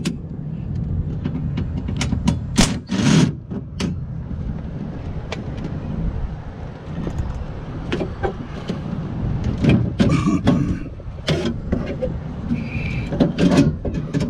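Scattered clicks and metal knocks of hand tools as a bar is unbolted and pulled out of a car door, over a steady low rumble.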